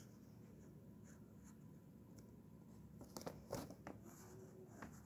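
Faint scratching of a pen drawing on paper, with several short strokes and taps in the second half.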